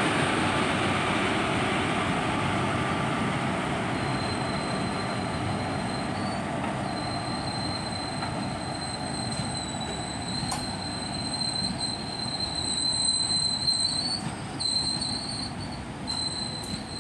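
Express train pulling out behind a WAP4 electric locomotive, its locomotive and then its passenger coaches rolling past on the rails with a steady rumble. About four seconds in, a thin, high, steady wheel squeal sets in and grows louder in the second half, with a few sharp clicks.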